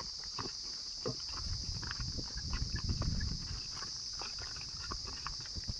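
Water buffalo herd and calves walking on a dirt path, with many short, scattered hoof steps and shuffles. A steady high insect buzz runs underneath, and a low rumble swells in the middle.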